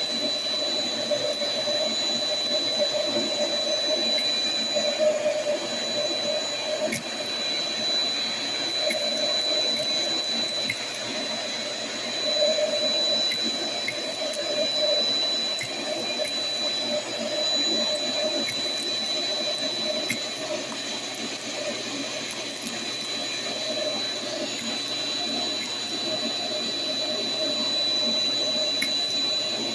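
Shop vac running steadily through a crevice tool, with a high steady whine, as it sucks up aluminum soda can tabs and beads that click and rattle now and then going up the hose.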